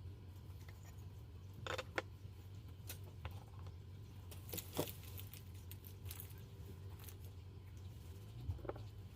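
A few light clinks and taps of small hard objects, in small clusters about two seconds in, near the middle and near the end, over a low steady hum.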